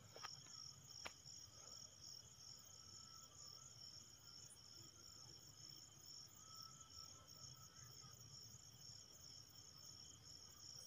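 Near silence, with faint steady cricket chirping in the background and two faint clicks in the first second.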